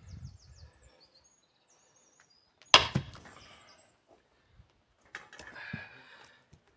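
Sledgehammer blow on a steel splitting wedge driven into an oak log: one sharp loud strike about three seconds in that rings briefly, then a softer knock and rattle about two seconds later. Small birds chirp faintly at the start.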